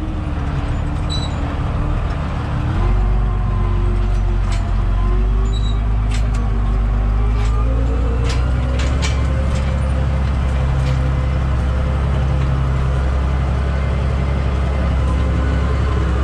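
Case tractor's diesel engine running from inside the cab while pulling a cultivation aggregate across the field. Its pitch steps up about three seconds in, and a few sharp knocks and rattles come through around the middle.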